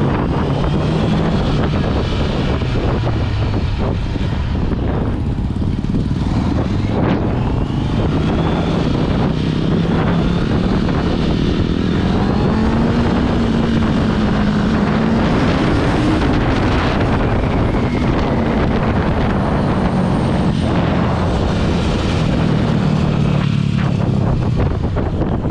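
Honda CB650R's inline-four engine running under way, its note rising and falling with the throttle, over steady wind rush. The engine note climbs for a few seconds around the middle and then settles.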